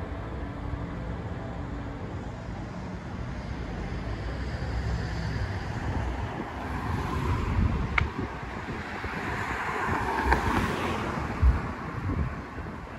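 Outdoor city street traffic: a low steady rumble, with a car driving past that builds and fades about seven to eleven seconds in, and wind buffeting the microphone. A couple of sharp ticks sound near the car's pass.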